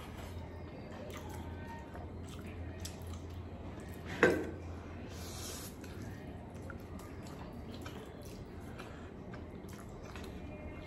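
Quiet eating sounds of noodles being chewed: small wet clicks and squishes over a steady low hum, with one sharp ringing clink about four seconds in and a short hiss a second later.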